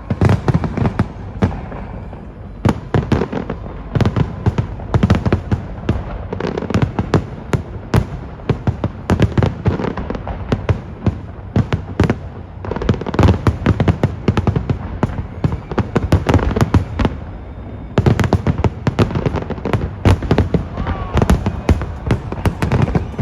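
Aerial fireworks display: a dense, continuous barrage of shell bursts and crackles, many bangs a second with no real pause.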